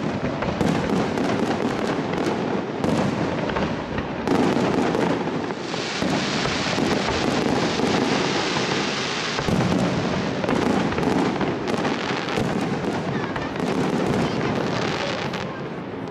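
Fireworks display: aerial shells bursting one after another in a near-continuous run of bangs, with a denser, hissing stretch from about six to nine and a half seconds in.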